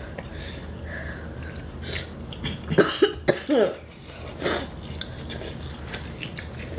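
A girl coughing several times in quick succession, then once more a moment later, from the burn of very spicy instant noodles.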